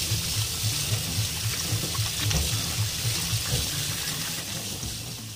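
Tap water running and splashing over a slab of raw pork belly that is being rubbed clean by hand in a plastic colander in a stainless steel sink.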